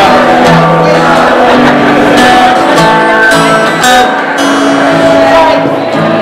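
Live music played loud: a guitar under a melody of long held notes.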